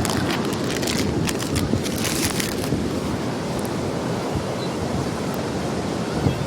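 Surf breaking and washing on a sea beach, under strong wind buffeting the microphone with a low rumble. A run of crisp crackles sits on top over the first two or three seconds, then the rush of surf and wind goes on evenly.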